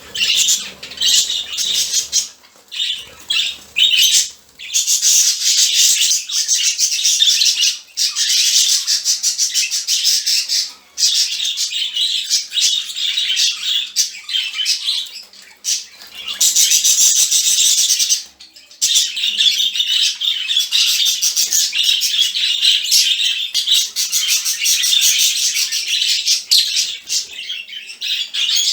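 A flock of budgerigars chattering, a dense nonstop mix of warbles, chirps and squawks with a few short pauses. This is their morning wake-up calling.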